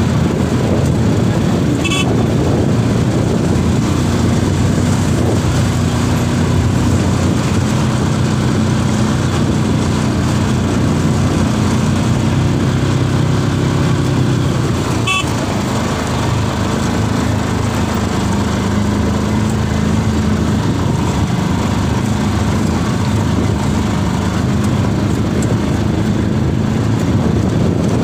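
ATV engine running while riding, its pitch rising and falling with the throttle. Two brief sharp knocks about two seconds and fifteen seconds in.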